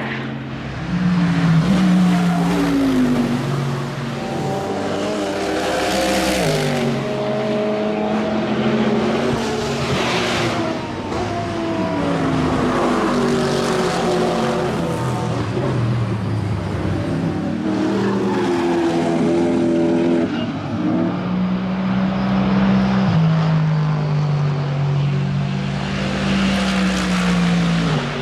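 Mercedes-AMG GT3 race car's V8 engine at racing speed, its pitch climbing through the gears and dropping on shifts and braking, with loud passes about 6 and 10 seconds in.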